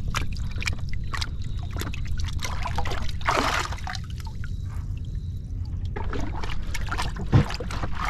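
Muddy water sloshing and splashing in a boat's anchor locker as it is stirred by hand and with a rubber plunger to clear the locker's blocked-up drain hole, in many short splashes.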